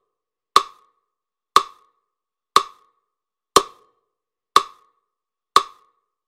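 Six sharp wood-block clicks, evenly spaced exactly one second apart like a metronome, with silence between them.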